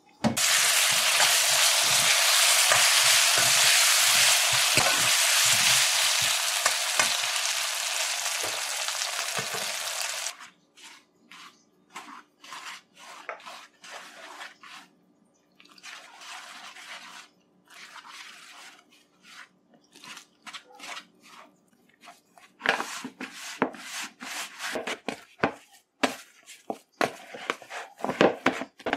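A loud steady hiss for the first ten seconds that cuts off abruptly, then quieter sounds of flour and water being mixed by hand in a plastic bowl. Near the end come rapid soft thumps and slaps of roti dough being kneaded.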